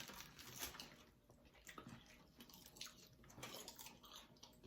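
Near silence with faint eating sounds: quiet chewing and a few small clicks.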